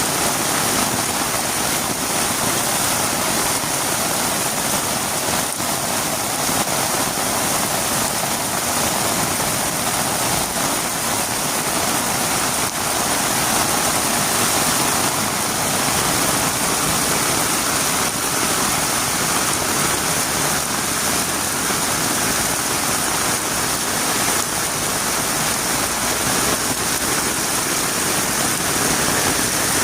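Heavy rain falling steadily on a road, an even, unbroken hiss.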